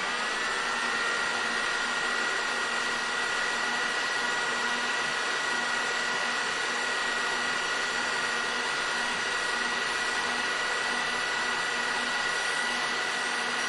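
Hair dryer running steadily: an even rush of blown air with a constant high motor whine.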